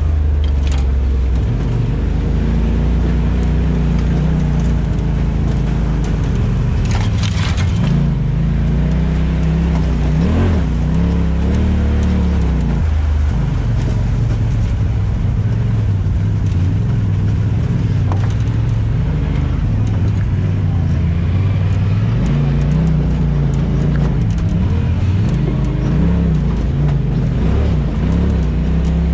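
Off-road vehicle engine running on the trail, its pitch rising and falling again and again as the throttle opens and closes. There is a brief rush of hiss about seven seconds in.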